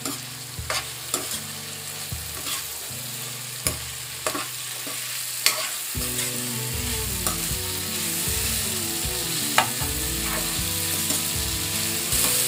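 Sliced button mushrooms and capsicum sizzling in oil in a non-stick kadai as they are stirred and tossed with a metal spatula, with sharp clicks each time the spatula knocks against the pan.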